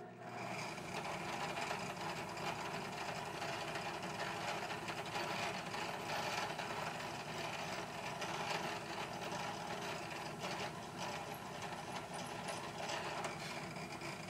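Benchtop drill press running steadily, a small twist bit drilling into steel held in a clamped drilling jig. The sound starts abruptly.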